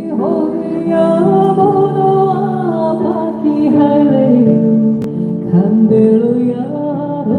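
A woman singing a Bangladeshi folk melody in long, held notes that slide between pitches, over sustained instrumental accompaniment.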